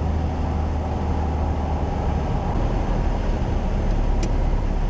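Cabin drone of a 1956 Cessna 172's six-cylinder Continental O-300 engine and propeller in flight: a loud, steady low hum that eases slightly after about two seconds, with a faint click about four seconds in.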